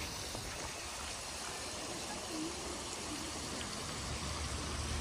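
Steady wash of running water from a garden cascade fountain.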